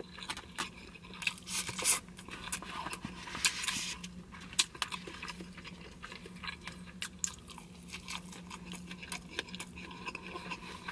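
Close-up chewing and biting of grilled beef and broken rice, with many short wet clicks and crackles from the mouth.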